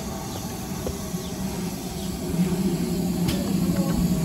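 Steam locomotive running slowly in alongside the platform, a low steady rumble that grows louder as it comes closer.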